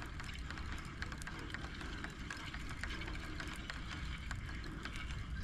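Quiet outdoor ambience: a steady low rumble of wind on the microphone, with faint scattered ticks.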